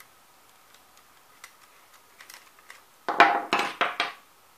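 Faint small ticks while a T-handle hex key turns out a handle bolt on a powder actuated nail gun. About three seconds in, a run of loud clattering knocks with short ringing as the hex key, the removed bolt and the tool are set down and handled on the workbench.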